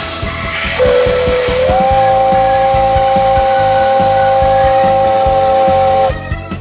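Steam whistle of Class 8620 steam locomotive No. 8630 sounding one long blast of about five seconds, two notes together, its pitch lifting slightly just after it opens. A rush of steam hiss comes just before the whistle.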